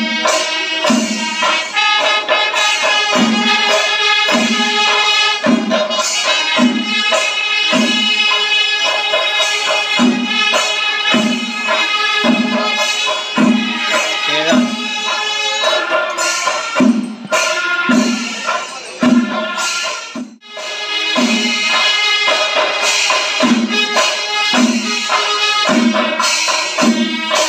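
Music with a steady drum beat, about three beats every two seconds, with jingling cymbals and sustained wind tones over it; it breaks off briefly about twenty seconds in.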